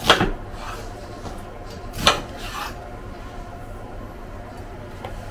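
Kitchenware being handled: two sharp knocks about two seconds apart, each followed by a softer clink, over a low steady hum.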